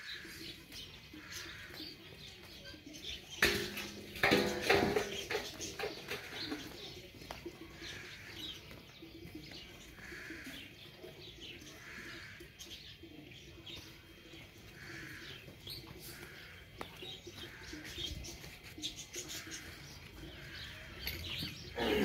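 Farmyard animal and bird calls: a short chirp repeating about once a second, with a louder call about four seconds in.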